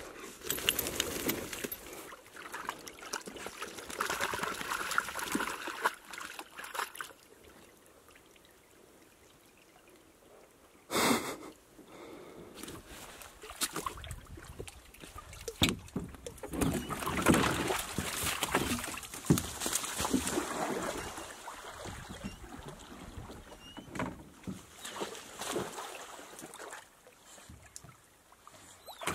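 Water sloshing and splashing around a canoe at the water's edge, in irregular bursts with a quieter stretch. There is a short, loud burst about eleven seconds in.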